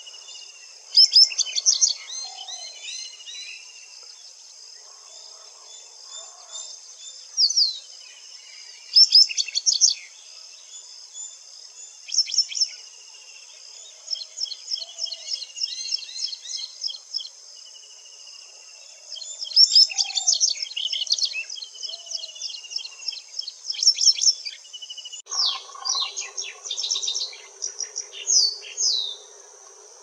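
White-browed wagtail singing: phrases of quick, sharp, varied notes that come and go in bursts, over a steady high-pitched insect drone.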